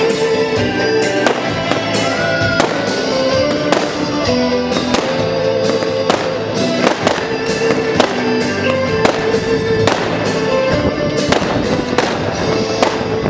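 Fireworks display: aerial shells bursting in a quick, irregular series of sharp bangs, about one or two a second, over music with sustained melodic tones.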